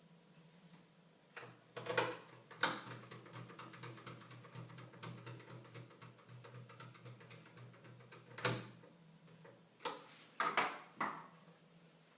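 Plastic and metal parts of a PlayStation 3 Fat console being handled and fitted during reassembly: a series of sharp clicks and knocks with light ticking between them, over a faint steady low hum that stops about two-thirds of the way through.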